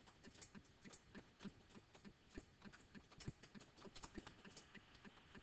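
Faint, quick, irregular ticks and taps, several a second, of a stylus on a writing tablet as a word is handwritten.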